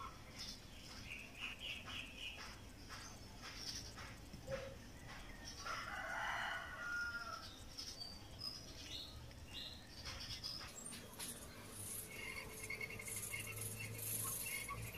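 Chickens clucking and a rooster crowing in the yard, with small birds chirping, faintly under quiet knife work.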